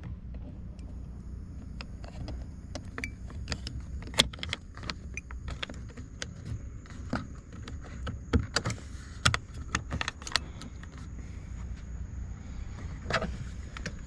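Small plastic trim covers being pressed and snapped into the interior door handle bezel of a 2008 Cadillac Escalade door panel: a series of sharp plastic clicks and taps, thickest from about four to ten seconds in, over a steady low background rumble.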